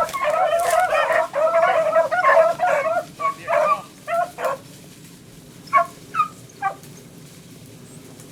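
A pack of beagles baying on a running rabbit's trail, several voices overlapping for about three seconds, then thinning to scattered bays, with three last single calls a little past halfway.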